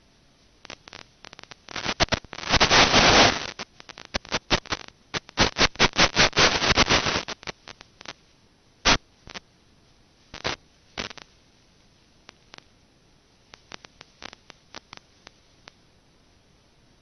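Crackling static on an otherwise near-silent audio track: dense bursts of clicks about two to seven and a half seconds in, then scattered single clicks.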